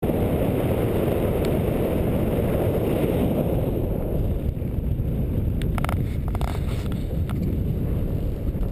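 Airflow buffeting the microphone of a camera flying under a paraglider: a steady low rushing noise, with a few short rustles about six seconds in.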